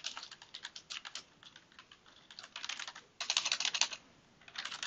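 Computer keyboard typing: quick, irregular runs of keystrokes, with a dense flurry a little after three seconds in and a brief pause just after it.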